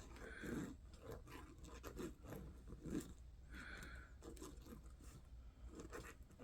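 Faint handling noises: fabric rustling and light scrapes and knocks as a glued velcro patch and jacket are handled, with two slightly louder moments about half a second in and about three seconds in.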